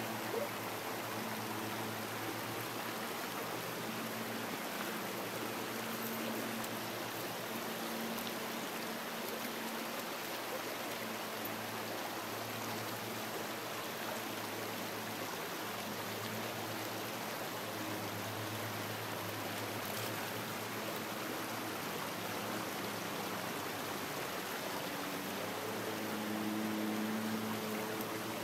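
Shallow creek running over rocks: a steady wash of flowing water. Underneath, a low steady hum fades in and out and is strongest near the end.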